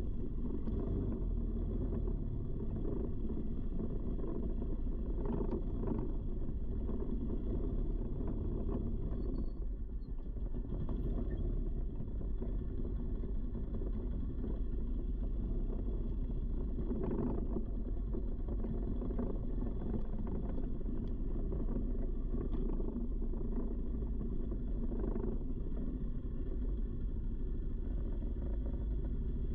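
Steady low rumble of an off-road vehicle riding a dirt trail, engine and wind noise mixed together, briefly dipping about ten seconds in.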